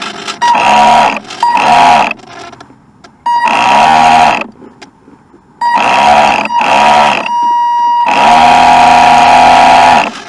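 RC boat's motor revving in about six short bursts, its pitch rising as each burst starts and falling as it ends, with a steady high whine; the longest burst, about two seconds, comes near the end.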